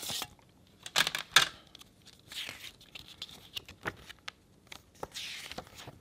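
Plastic CD jewel case being handled, with two sharp clicks about a second in, while a paper CD booklet is slid out and its pages rustle as they are opened.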